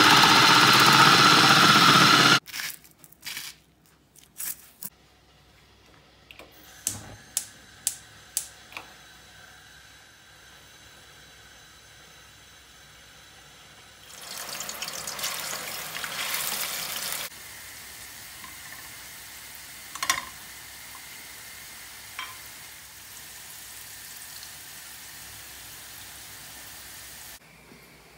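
Electric food processor motor running loudly as potatoes are pushed through its slicing chute, stopping abruptly about two seconds in. Clicks and knocks of handling the appliance follow, then cooking oil poured into a ceramic frying pan with a hissing splash, and a steady quieter hiss for about ten seconds.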